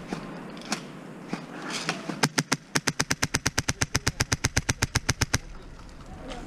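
Krytac airsoft rifle with a Wolverine Inferno Gen 2 HPA engine firing one long full-auto burst of about thirty shots, roughly ten a second, starting a little over two seconds in. A few single clicks come before the burst.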